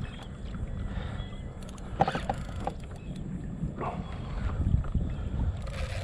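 Low wind rumble on the microphone over a kayak moving on the water, with a few short knocks about two and four seconds in.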